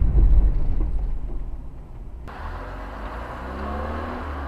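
Road and engine noise of a car driving, heard from inside the cab through a dashcam: a heavy low rumble at first, then an abrupt change about two seconds in to a quieter, brighter traffic noise in which an engine note rises slightly.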